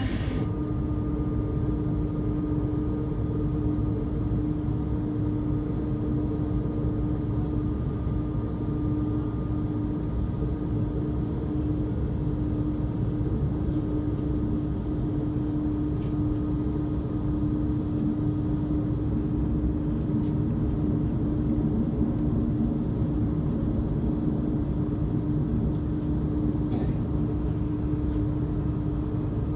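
Airliner jet engines running at a steady idle: an even rumble with a constant hum, no spool-up.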